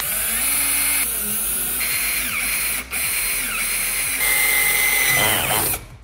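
Cordless drill boring a hole through soft aluminum angle, its motor whine shifting in pitch as the bit cuts. The drill pauses briefly about three seconds in, then runs on and stops just before the end.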